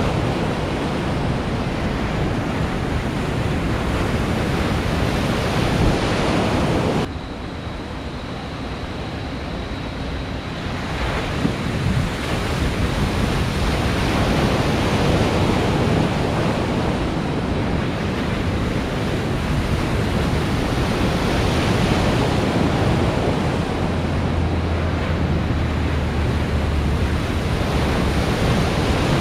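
Rushing, breaking water of the waves in an artificial surf pool (a Wavegarden Cove). The rush drops off abruptly about seven seconds in and builds back up a few seconds later.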